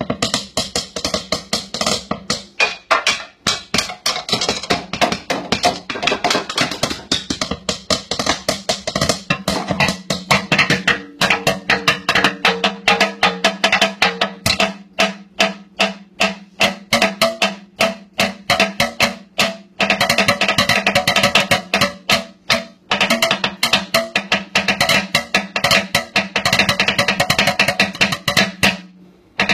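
Drumming on a kitchen sink: a fast, dense groove of sharp strikes, with a few short breaks.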